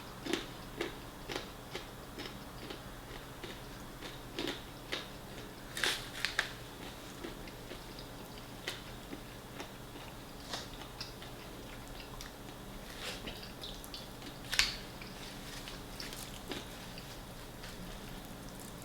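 Close-up biting and chewing of fried chicken: irregular short crunches and mouth clicks, with one sharper, louder crunch about three-quarters of the way through.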